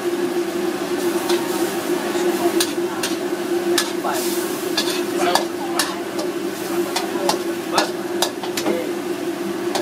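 A metal spatula scrapes and clinks against a steel wok in irregular strokes as a saucy stir-fry sizzles, over a steady hum.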